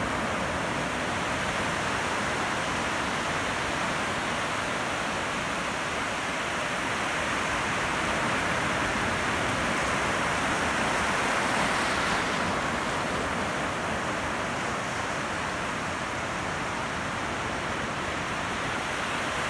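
Ocean surf: a steady wash of breaking waves, swelling a little just past the middle and then easing off.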